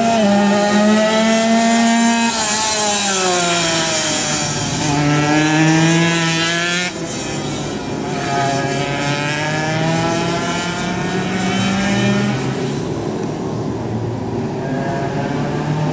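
Two-stroke 125 cc underbone race motorcycle engine at high revs, its pitch falling and climbing again several times as it goes round the track. About seven seconds in it drops suddenly in level and carries on more distantly.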